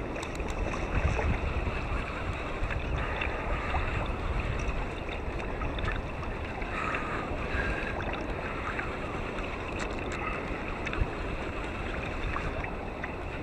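Wind on the microphone and water lapping against a kayak hull: a steady rushing, with a few faint ticks and one sharp tap about eleven seconds in.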